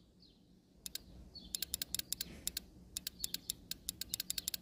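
Automotive relay, the A/C compressor clutch relay of a Ford Explorer, clicking over and over as battery power is tapped on and off its coil terminals, starting about a second in at several irregular clicks a second. The clicking shows the relay's coil is intact and pulling in the contacts.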